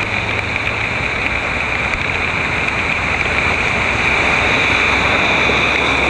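Heavy rain pouring onto a flooded street, with a car driving through the standing water and throwing up spray. It gets a little louder from about four seconds in, as the car passes close.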